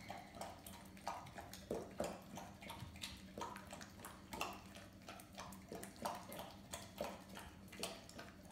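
Labrador lapping and slurping watery food from a plastic bowl, in a steady run of short wet laps about twice a second.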